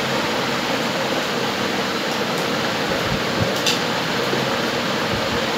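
Steady whirring noise of a running fan, with a few faint clicks about three and a half seconds in.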